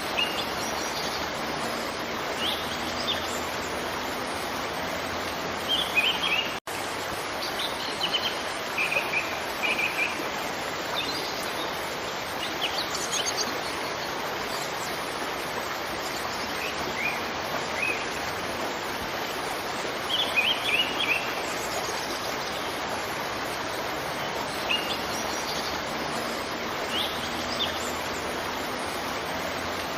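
Steady rush of a waterfall with small birds chirping in short, scattered bursts over it. The sound cuts out for an instant about six and a half seconds in.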